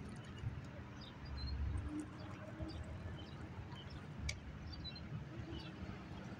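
Faint bird chirps over a low, steady rumble, with one sharp click about four seconds in.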